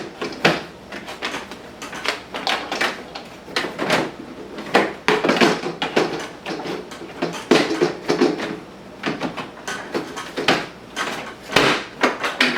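Irregular plastic knocks, clicks and scrapes as a cordless track saw is slid into its hard plastic Makita MAKPAC-style carrying case and the case is handled.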